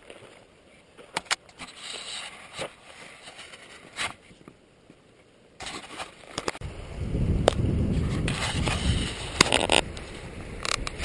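Scattered sharp clicks and scrapes. Then, from a little past halfway, a loud, gusty low rumble of wind buffeting the microphone, with more clicks over it.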